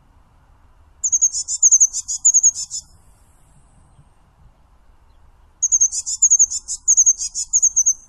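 Eurasian blue tit singing: two bursts of rapid, very high-pitched notes, each lasting about two seconds. The second burst starts about halfway through.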